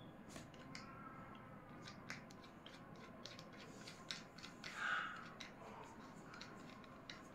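Small plastic parts of a helmet-strap phone mount being handled and fitted together: faint scattered clicks and ticks, with a brief louder scrape about five seconds in.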